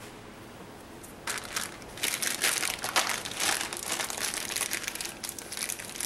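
Small clear plastic parts bag crinkling as it is opened and worked between the fingers, starting about a second in and going on in close, irregular crackles.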